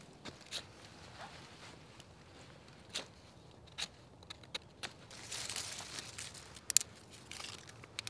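A stick scraping and digging into loose soil and leaf litter to hollow out a fire pit, with scattered scratches and small twig snaps. A rougher scraping stretch comes past the middle, and a sharp double snap just after it is the loudest sound.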